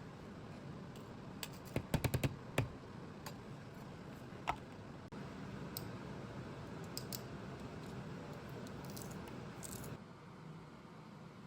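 Kitchen utensils and dishes knocking and clicking during food preparation. A quick run of sharp clicks comes about two seconds in, then a single ringing clink, over a faint steady hiss.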